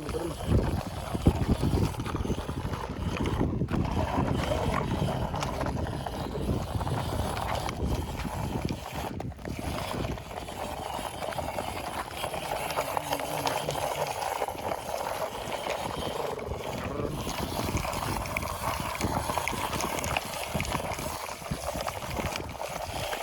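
Toy dumper truck driving over rough ground: a steady whine with crackling, rumbling noise from the wheels on dirt.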